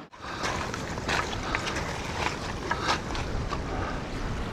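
Stream water running and splashing over rocks in a washed-out road bed, a steady rushing with irregular small splashes.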